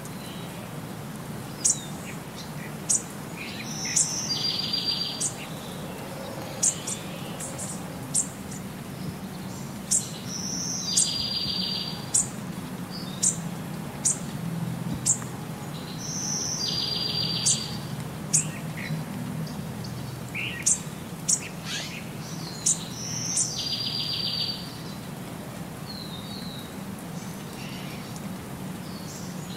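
Bird-chirp nature ambience: sharp high chirps and a short buzzy trill, the same pattern repeating about every six to seven seconds as a loop, over a steady low hum.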